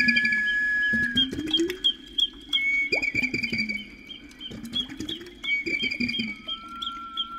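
Background track of high, repeated bird-like chirps and trills over held whistle-like tones, with low cooing slides rising and falling beneath them.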